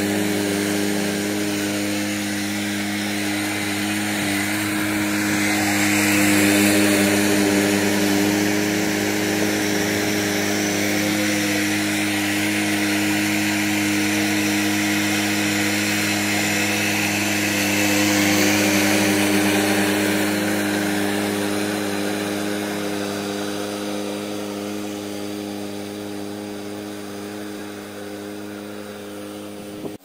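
Engine of a Lesco commercial walk-behind lawn mower running at a steady speed as the radio-controlled mower drives across the lawn. It grows louder twice, about six and eighteen seconds in, and fades over the last several seconds.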